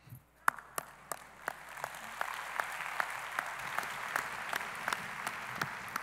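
Audience applauding. It starts with a few sharp claps and swells into steady applause within about two seconds, with one person's nearby claps standing out at about three a second.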